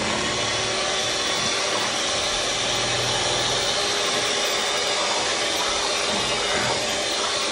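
Electric hand mixer running steadily, its beaters whisking wet tamale masa in a plastic bowl.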